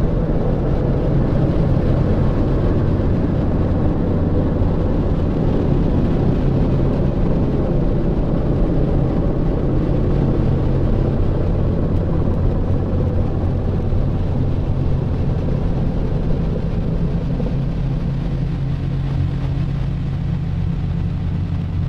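Vehicle engine running steadily with a deep, even drone, easing off slightly in the second half.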